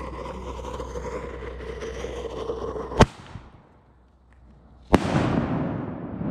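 Consumer artillery shell firing. A hissing fuse burns, then a sharp launch bang comes from the mortar tube about three seconds in. Roughly two seconds later the salute shell bursts with a loud report that trails off in echoes.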